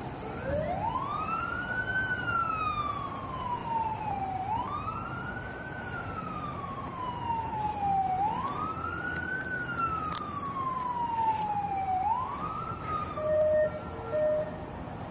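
Emergency vehicle siren wailing: the pitch rises quickly and falls slowly, about four times, each cycle roughly four seconds, over a low background rumble. Near the end come two short horn blasts.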